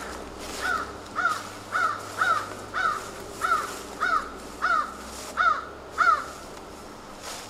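A crow cawing about eleven times in a steady run, roughly two caws a second.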